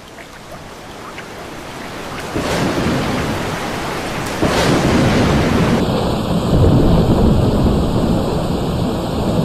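Thunderstorm sound effect: steady rain with rolling thunder, growing louder, with heavier rolls of thunder about two and a half and four and a half seconds in.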